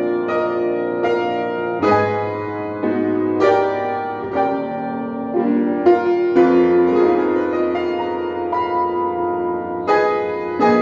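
Solo upright acoustic piano playing a slow jazz ballad. Chords and melody notes are struck every second or two and left to ring into one another.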